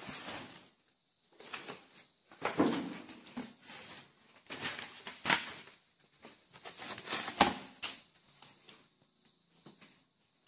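Handling noise: a hand and the sheet of paper rustling and brushing close to the microphone in several short bursts, with no writing strokes.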